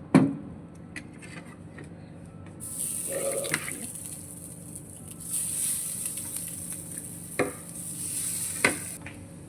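Masala vada batter sizzling on the hot, preheated microwave multi cook pan: a high hiss that begins about two and a half seconds in and stops shortly before the end. A sharp knock comes right at the start, and a couple of short taps come near the end.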